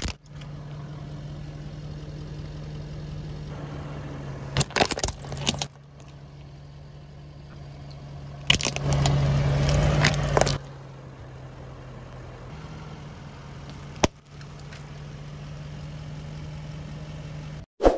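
A car engine idling with a steady low hum while its tyre rolls over and crushes small plastic toys and objects: a few quick cracks about five seconds in, a louder crunching stretch of about two seconds around nine seconds, and one sharp snap near fourteen seconds.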